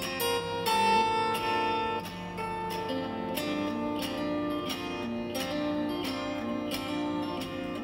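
Background music: a tune of plucked string notes struck at a steady pace.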